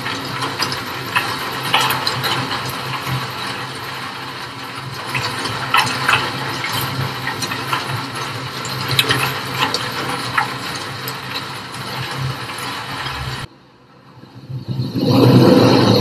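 Rain pattering on a wet street with the low hum of car traffic running through, many small drop ticks over a steady rush. It cuts off suddenly about thirteen seconds in, and after a short gap a sea wave swells up and washes in near the end.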